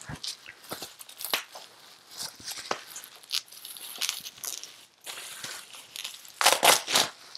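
White plastic packing material crinkling and crackling as it is handled and pulled apart by hand, in irregular bursts, loudest in a cluster near the end.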